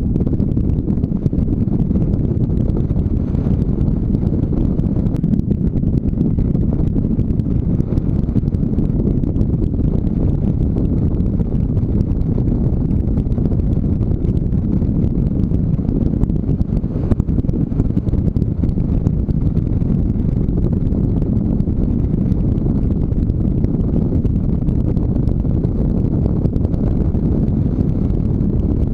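Motorcycle riding steadily along a gravel road: engine running at an even pace, with wind noise on the helmet-mounted microphone. The sound is loud, mostly low-pitched, and does not change.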